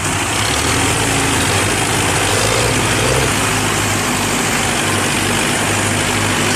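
Tractor diesel engine running loud and steady, its note shifting a little about three seconds in.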